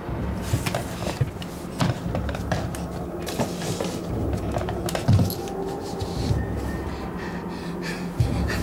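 Horror-film score and sound design: a steady low rumbling drone with scattered knocks and clicks, the loudest a low thump about five seconds in.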